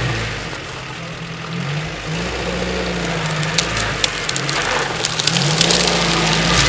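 UAZ off-road vehicle's engine running under load, its pitch rising and falling several times as the throttle changes while it drives through a stream. Scattered sharp knocks come in the second half as it grows louder.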